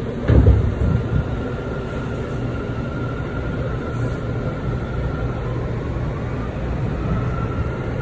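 New York City subway train running: a steady rumble with a loud thump about half a second in and a thin high whine for much of the time.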